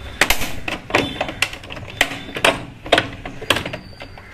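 A quick, irregular series of sharp plastic clicks and knocks as a latch on a top-load washing machine's top panel is released and the panel handled.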